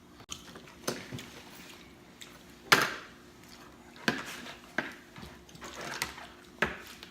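Eating sounds: a string of short sharp clicks and smacks, about one a second, the loudest a little under three seconds in.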